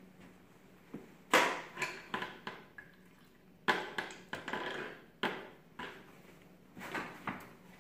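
Paint cans, tins and tools being handled on the floor: a handful of sharp knocks and clinks, the loudest about a second and a half in, each trailing off briefly, as a brush or stick stirs and taps in a can of paint.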